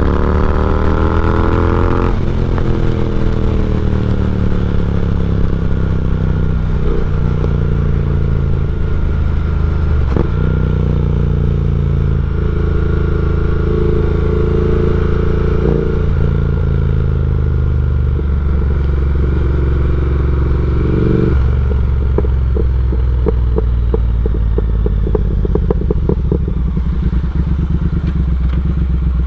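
Triumph Speed Twin's 1200 cc parallel-twin engine, de-catted with an X-pipe and slip-on mufflers, pulling up through the gears with upshifts about two and ten seconds in. The throttle then closes about twenty seconds in and the exhaust crackles and pops on the overrun.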